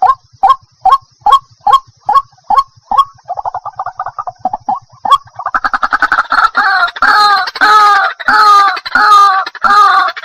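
White-breasted waterhen calling. It starts with a run of short clipped notes at about two and a half a second, breaks into quick chattering around three to five seconds in, then gives louder, longer croaking calls about twice a second: the repeated 'ruak-ruak' call the bird is named for.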